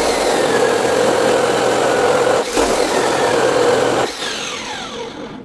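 DeWalt abrasive chop saw cutting through thick-walled 3-inch square steel tubing: a steady, loud grinding run that dips for a moment about two and a half seconds in. Near the end the sound drops in level and its pitch slides downward.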